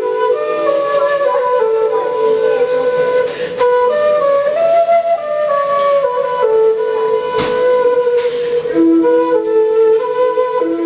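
Long end-blown bamboo flute playing a slow melody of held notes that step up and down.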